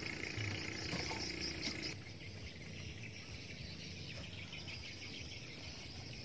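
Insects chirring in a steady chorus, with a few faint taps early on. About two seconds in the chorus drops abruptly to a softer, finely pulsing buzz.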